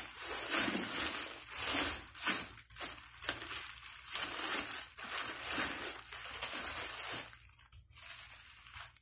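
Packaging being handled, crinkling and rustling in uneven bursts, with a short lull near the end.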